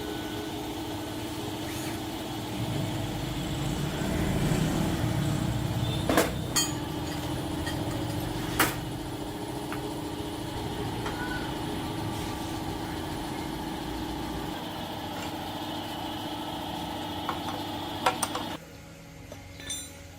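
An engine running steadily, with a low rumble that swells for a few seconds and a few sharp knocks over it. The sound drops away abruptly about two seconds before the end.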